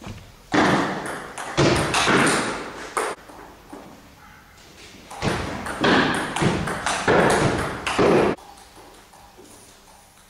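Table tennis rallies: a celluloid ball clicking off bats and the table. There are two loud spells of noise about three seconds long each, one starting about half a second in and one about five seconds in, with quieter stretches between.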